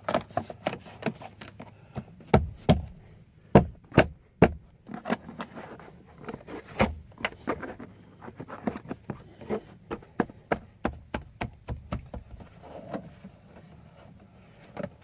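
Rubber door seal and plastic interior trim being pressed and knocked into place by hand: irregular taps and clicks, with several louder thumps about two to five seconds in.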